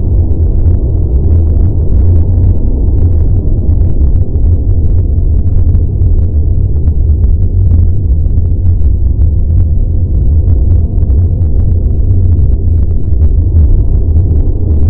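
Spaceship cruising sound effect: a loud, steady, deep rumble with a faint crackle above it.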